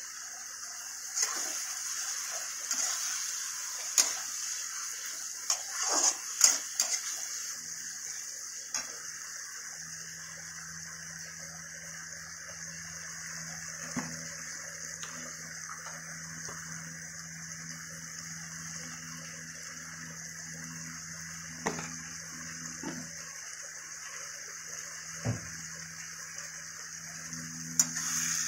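Chopped tomatoes frying in oil in a steel kadai, with a steady sizzle. A metal ladle stirs them, knocking and scraping against the pan every few seconds.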